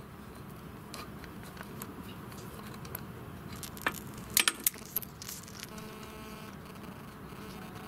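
A few light metallic clicks and taps as the drain screw in an outboard motor's gearcase is loosened with a screwdriver and turned out by hand. The loudest cluster of clicks comes about halfway through.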